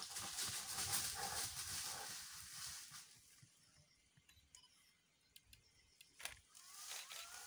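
Two greater one-horned rhinoceroses fighting, giving harsh, breathy calls that are loudest in the first three seconds and then die away; a single sharp crack a little after six seconds.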